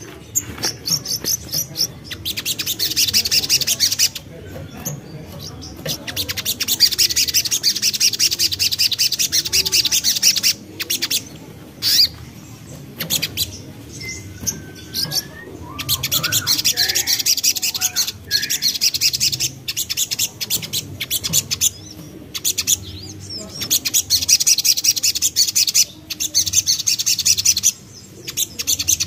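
A sogok ontong (sogon) songbird singing long bursts of very rapid, high-pitched chattering trill, each run lasting a few seconds with short pauses between. A few lower whistled notes come in the middle.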